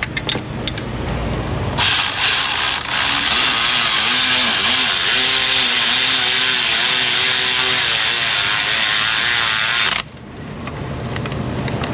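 Cordless power tool running a bolt in, its motor going for about eight seconds with a wavering pitch, then stopping abruptly.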